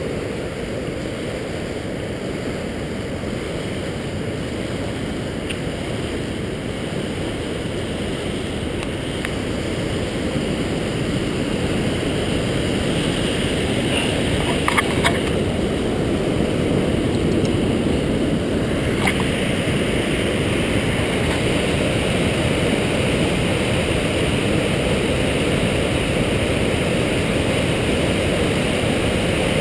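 Steady rush of whitewater pouring over the brink of a waterfall, growing louder about a third of the way in and then holding. A few light clicks come near the middle.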